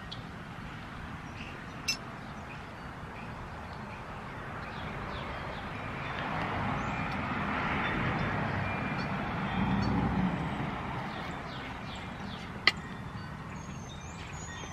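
Two sharp clicks, about eleven seconds apart, as small metal parts of a chainsaw magneto are handled, over outdoor background noise. A broad rush of noise swells for several seconds in the middle and then fades.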